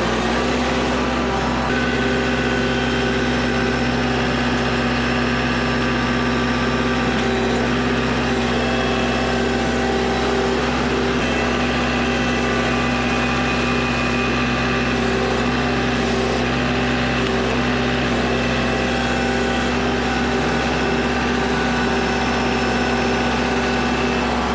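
Kubota L4701 compact tractor's four-cylinder diesel engine running at a steady speed close by while its front-loader grapple picks up logs.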